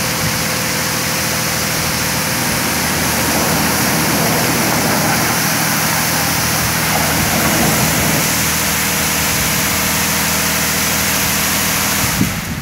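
W360 touchless car wash machine spraying high-pressure water jets over a car, a loud steady hiss with a constant machine hum underneath. The spray cuts off near the end.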